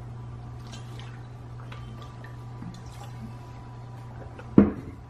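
Quiet mouth sounds of sipping and swallowing from a water bottle, then chewing, over a steady low hum, with a sharp knock about four and a half seconds in.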